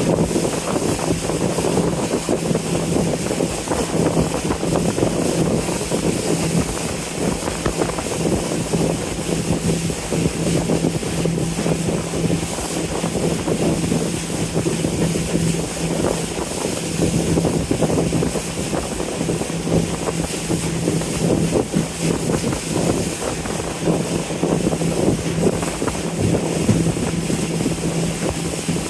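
A cruising boat's engine running steadily with a constant low hum, under wind buffeting the microphone and water noise.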